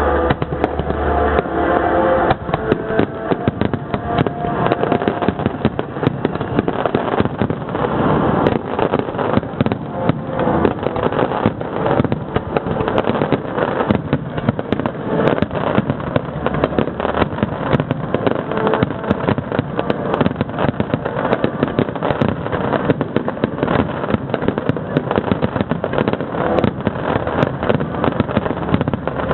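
Dense fireworks barrage: many rapid, overlapping bangs and crackles with no let-up. Music plays under it for the first couple of seconds.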